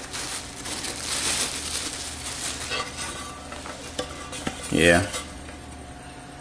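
Clear plastic wrap rustling and crinkling as removable grill plates are unwrapped and handled, with light knocks of the plates. A brief rising squeak comes just under five seconds in.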